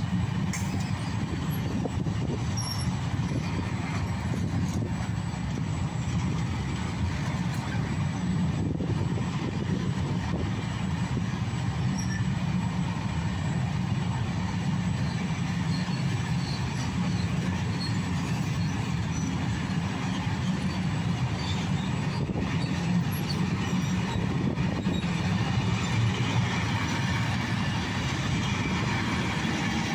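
Long freight train of covered sliding-wall wagons rolling steadily past, a continuous noise of wagon wheels running on the rails.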